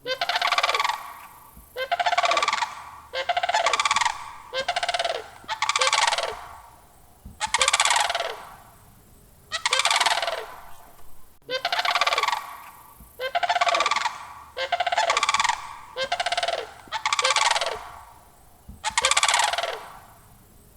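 Sandhill crane calling over and over with its rolling, rattling bugle. There are about a dozen calls, each roughly a second long and dropping slightly in pitch, with short pauses between them.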